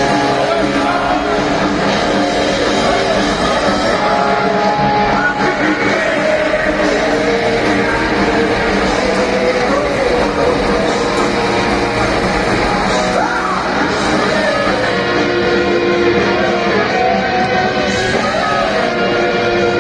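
Heavy metal band playing live, loud and steady, with singing over electric guitars.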